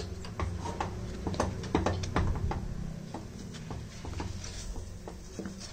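A spatula stirring thick, thickening cornflour halwa in a pan, with irregular soft taps and clicks against the pan.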